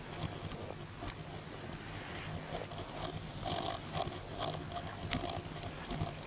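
Toyota FJ pickup's 3.9-litre F straight-six engine idling steadily, with a few short squeaky chirps about halfway through.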